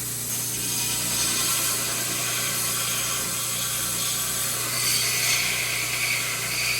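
Grinder running steadily against steel, grinding and cleaning up a bent piece of shelf steel, with a steady motor hum under a continuous grinding hiss that grows brighter about five seconds in.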